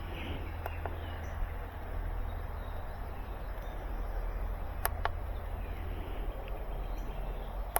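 A few light clicks of the jump pack being handled, two close together about five seconds in, over a low steady hum.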